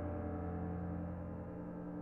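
Piano music: a held chord rings on and slowly fades.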